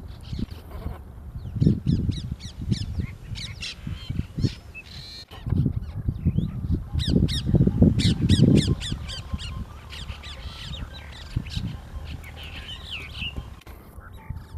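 Brahminy starlings calling: quick runs of short, falling, chattering notes, busiest in the middle, over low rumbling bumps.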